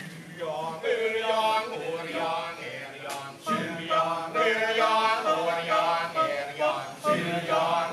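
Kecak chorus of men's voices chanting a sung melodic line in short held phrases, with one sharp short shout or clap about three seconds in.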